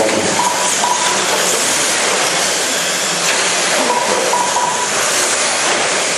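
Radio-controlled cars racing on a track: a steady, loud hissing rush of motors and tyres, with a few brief whining tones as cars pass.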